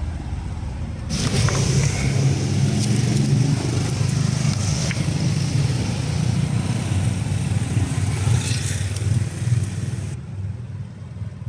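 Steady low drone of a motor engine running nearby, with a high hiss that cuts off about ten seconds in and a few faint clicks.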